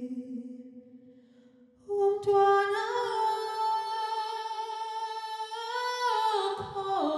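A low hummed note fades out. About two seconds in, a solo female voice enters and sings one long held note, rising slightly early on and then falling away near the end before the next, lower note begins.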